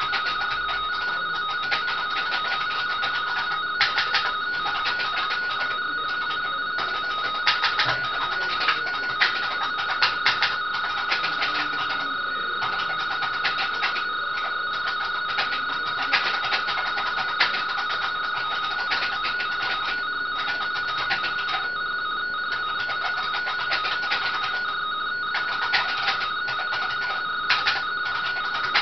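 RTTY (radioteletype) signal played over a speaker: a steady two-tone frequency-shift-keyed warble near 1.3 to 1.45 kHz, with hiss and scattered crackling clicks.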